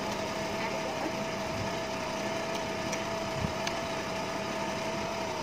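A steady mechanical hum with one constant mid-pitched tone, like a small motor running.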